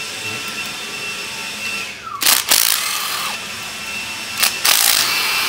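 Cordless drill spinning out the valve-cover bolts on a GM LS-series V8 cylinder head, in short whirring bursts, the first about two seconds in and more near the end.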